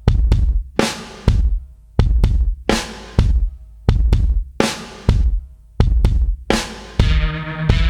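Background music: a drum beat with heavy bass drum and snare hits, joined near the end by sustained synth or bass notes.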